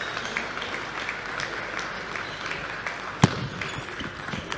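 Table tennis rally: the plastic ball clicks sharply off the rubber paddles and the table at irregular intervals, with the loudest hit about three seconds in. Under the clicks runs a steady wash of crowd noise.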